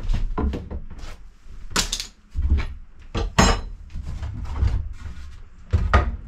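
Loose wooden cabin-side board being handled and shifted against the boat's cabin: a string of irregular wood-on-wood knocks and thumps, with a couple of brief scrapes in the middle.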